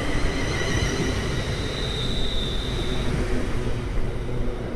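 A train running past, a loud steady rumble with a high whine over it that fades out about three seconds in.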